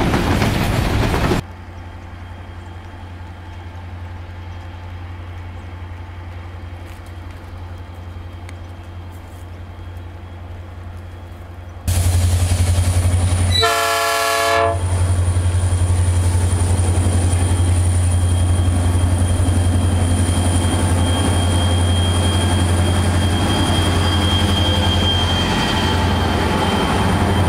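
Freight wagons running past cut off abruptly about a second in, leaving a quieter, steady low train hum. About twelve seconds in the sound jumps to the loud, steady drone of diesel-electric freight locomotives. Soon after, a locomotive air horn sounds once for about a second, and the locomotives keep droning as they pass close by.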